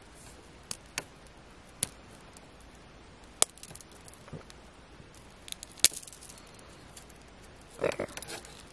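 Tight plastic wrap on a toy diamond-dig block, picked at with the fingers: a few sharp, scattered clicks of fingernails on the wrap, then a short burst of crinkling near the end.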